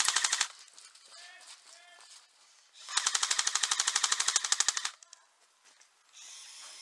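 Airsoft rifle firing rapid full-auto bursts: the end of one burst about half a second in, then a second burst of about two seconds.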